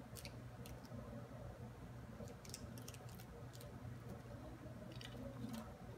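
Scissors snipping open a small foil blind bag and the wrapper crinkling: a scattering of faint, short clicks and crinkles, bunched near the start and again in the middle, over a steady low hum.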